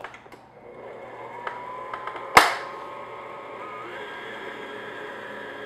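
Stand mixer motor running on low speed, its paddle turning through dry cake flour and sugar: a steady motor hum that starts about a second in and steps up in pitch near four seconds. A single sharp click comes a couple of seconds in.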